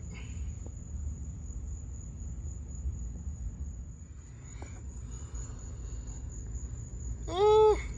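Steady high-pitched insect trill, typical of a cricket, over a low outdoor rumble. Near the end comes a brief, loud voiced 'hmm'.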